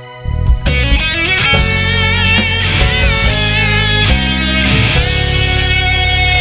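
Instrumental introduction of a pop-rock ballad. A soft sustained string passage gives way, under a second in, to the full band coming in loudly, with an electric guitar carrying a bending lead melody over a heavy low end.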